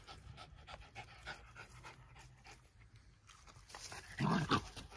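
Two Jack Russell terriers play-wrestling: quiet breathing and scuffling, then a brief loud vocal outburst from one dog about four seconds in.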